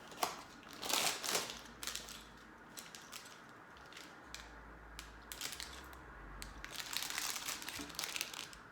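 Crinkling and rustling of LEGO advent calendar packaging as a door is opened and its small parts packet handled. There is a burst of crinkling about a second in and another near the end, with light clicks of handling between.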